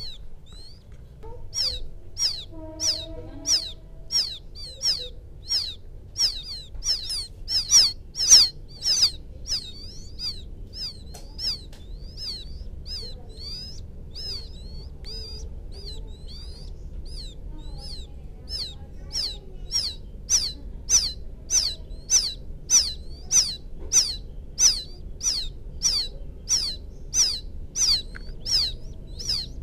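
Quail chick calling for its parent: a long series of high, thin peeps, each falling in pitch, at about two a second. The peeps fade for a few seconds in the middle and then come back loud.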